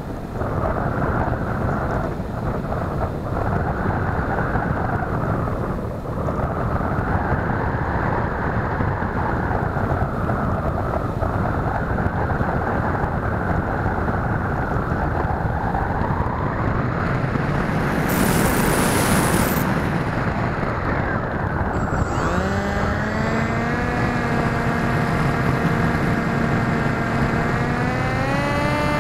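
Air rushing over the onboard camera of an MS Composit Swift 2 RC plane in a glide, with a brief sharper hiss about 18 seconds in. About 22 seconds in, the plane's electric motor and propeller start up, a whine that rises in pitch and then holds steady, climbing a little more near the end: power on for a climb.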